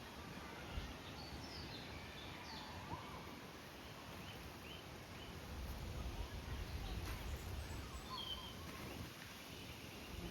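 Birds chirping in short, scattered calls over a steady outdoor background hiss, with a low rumble building up past the middle.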